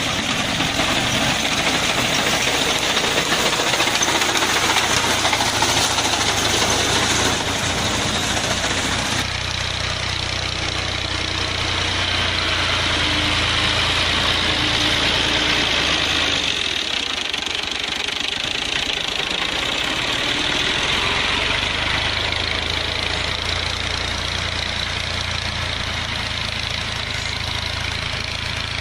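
Engine of working farm machinery running steadily, its sound changing about nine seconds in and again around seventeen seconds in.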